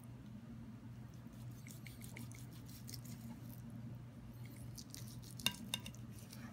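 Steak knife sawing through a grilled tomahawk steak, with faint scraping and small clicks of cutlery, and two sharp clicks of knife or fork on the plate about five and a half seconds in. A steady low hum runs underneath.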